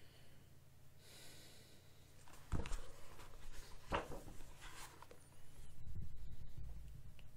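Pages of a paperback book rustling as it is handled and leafed through, with two sharp page snaps about two and a half and four seconds in. A low steady hum sits underneath.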